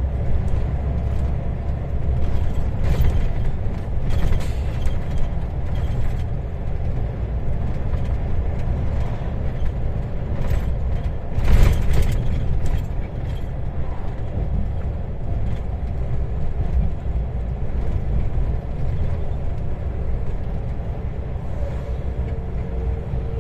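Road and engine rumble heard from inside a vehicle's cabin while driving on a highway, with cabin rattles and creaks and occasional knocks, the loudest about halfway through.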